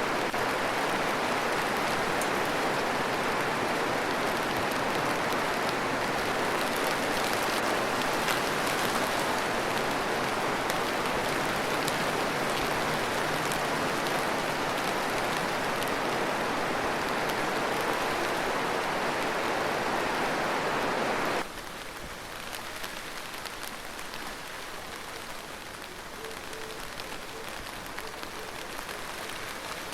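Steady heavy rain that cuts abruptly to lighter, softer rain about two-thirds of the way through.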